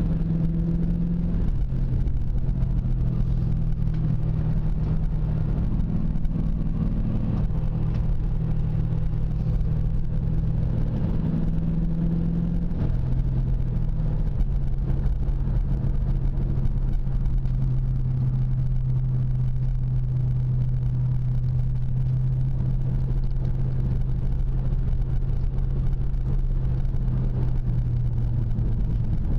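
2000 Mustang GT's 4.6-litre V8 engine running as the car is driven, heard from inside the car. The engine note changes pitch a few times in the first half as gears are shifted, then holds steady at cruise.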